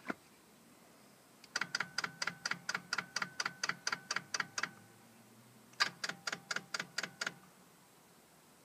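Marine winch ratchet clicking as it is turned: a run of about twenty evenly spaced, ringing metallic clicks, about seven a second, then after a short pause a second run of about nine.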